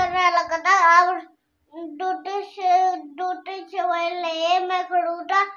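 A young child singing in a high voice, in short phrases, with a brief pause about a second and a half in.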